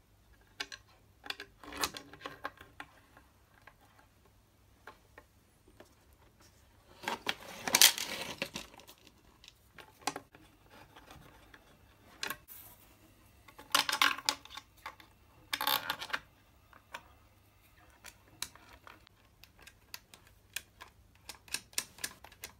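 Plastic capacitor clamps and their small screws being handled and fitted onto studs on an aluminium plate: scattered clicks, taps and short scrapes, the loudest cluster about 8 seconds in.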